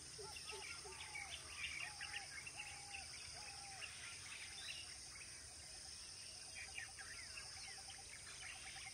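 Birds chirping and calling over a steady high insect drone. A run of repeated rising-and-falling whistled notes comes in the first few seconds, and quick trilled notes come near the end.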